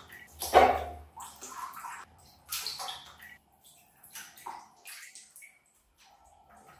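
Bathwater splashing and sloshing in irregular bursts, the loudest about half a second in, dying away to near quiet about six seconds in.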